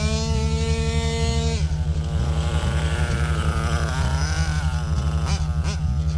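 Background music with a steady, evenly repeating bass beat and a melody line that is held for the first second and a half, then glides up and down.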